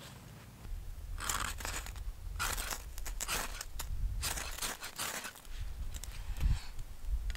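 A ferro rod scraped hard with the spine of a knife to throw sparks onto the fine shavings of a feather stick: a run of about eight short, harsh scrapes over some four seconds, then a fainter one.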